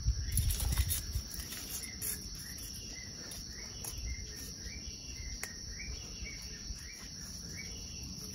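Crickets chirping in a steady high trill, with a second, lower call repeating about twice a second. In the first second, low rustling and knocks of hands working the soil.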